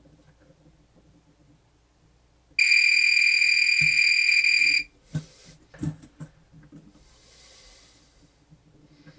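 Multimeter continuity beeper sounding a steady high beep for about two seconds as the test probes bridge the commutator of an electric motor's armature, followed by a few sharp clicks and knocks of the probes being handled.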